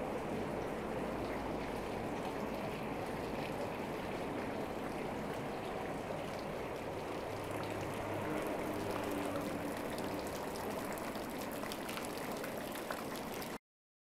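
Steady rain-like rush and patter of falling water from a water-cooled gazebo installation. It cuts off abruptly near the end.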